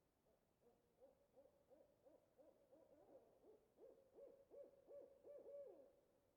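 A distant owl hooting faintly in a quick series of short hoots, about three a second, each dropping slightly in pitch. The hoots grow louder toward the end and stop just before the end.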